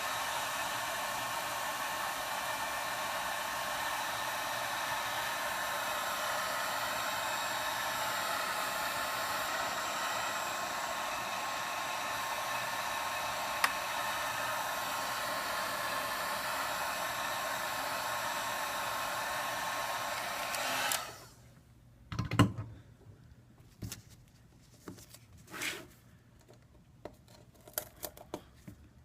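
Hot-air blower running steadily, softening old adhesive for removal, then switched off abruptly about three quarters of the way through. A few light clicks and scrapes of small tools follow.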